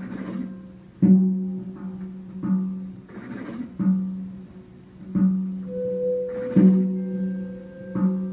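Live improvised electric guitar and drum kit duo: a low pitched note is struck about every second and a half and left to ring, with brighter noisy strikes every few seconds and a higher held tone entering past the middle.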